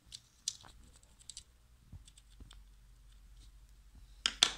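Small plastic clicks and light handling noises from a disassembled Ford Expedition door lock switch being cleaned. A few scattered faint clicks come first, and a louder quick cluster of clicks comes near the end.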